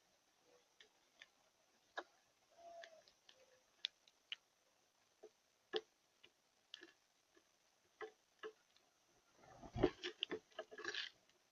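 Scattered faint clicks and taps, about one a second, then a quick cluster of louder knocks and rustling near the end.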